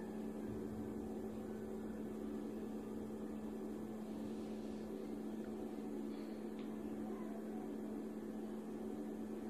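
Steady low hum with a faint even hiss beneath it, the constant background noise of a small room, with no distinct event.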